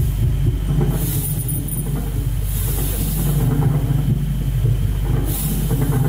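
Electronic soundtrack of an audiovisual installation: a dense, steady low drone, with swells of high hiss that come and go and a few faint, short, high tones about a second in.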